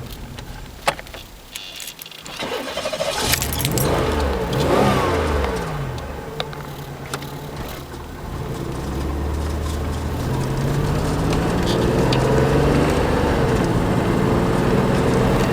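Buick Century's 3.3-litre V6 engine: a few clicks, then the engine comes in about two and a half seconds in. Its pitch rises and falls, then climbs gradually and holds at higher revs.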